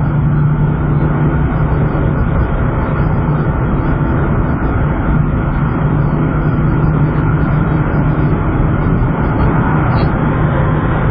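Dodge Viper's V10 droning steadily at a highway cruise of about 80 mph, under a constant rush of tyre and road noise, heard from inside the cabin.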